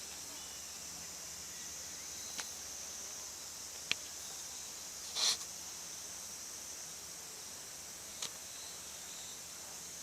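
A cat breathing through a nose that is blowing a snot bubble: one short, breathy snort about five seconds in, and a few faint clicks, over a steady high hiss.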